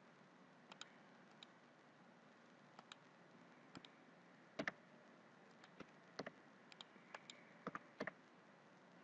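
Faint, scattered clicks of a computer mouse and keyboard keys, about a dozen spread irregularly over several seconds, the loudest a quick double click about halfway through, over near-silent room tone.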